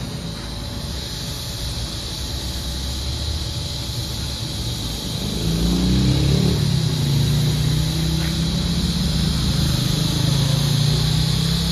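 TIG welding arc laying a finishing bead on a steel pipe, a steady hiss. About halfway in, a low droning hum that bends slightly in pitch at first comes in and becomes the loudest sound.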